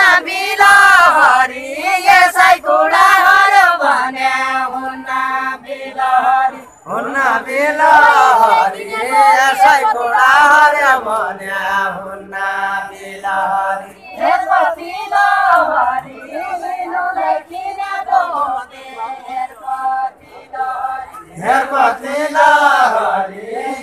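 Unaccompanied deuda folk singing: voices sing long phrases in held, wavering notes with short breaks between them.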